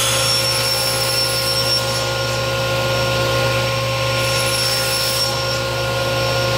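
Table saw with a cross-cut blade running steadily at speed as a 3/4-inch pine board is crosscut to length on a miter fence.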